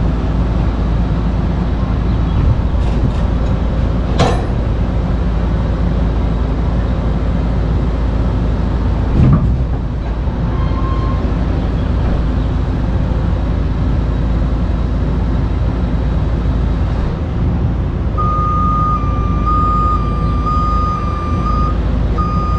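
Heavy rotator tow truck's diesel engine running steadily at working speed while its boom holds a loaded shipping container in the air. A single knock comes about nine seconds in, and a steady high-pitched tone with short breaks starts about eighteen seconds in.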